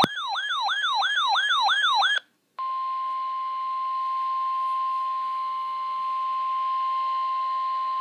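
An electronic siren-like alert yelps, its pitch sweeping down and back up about four times a second, and stops about two seconds in. After a short gap, the NOAA Weather Radio warning alarm, one steady tone of about 1050 Hz over radio hiss, sounds continuously, announcing an emergency weather warning.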